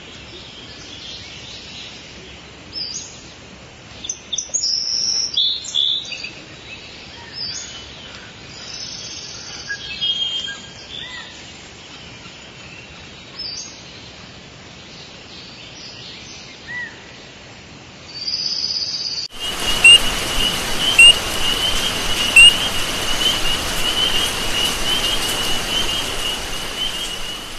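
High chirps and twitters come and go, scattered and irregular. About two-thirds of the way through, after a cut, a steady hiss sits under a fast, even run of repeated chirps at one pitch, broken by a few sharp clicks.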